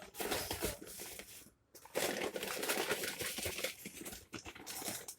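Grocery packaging crinkling and rustling as it is handled, with a short pause about a second and a half in.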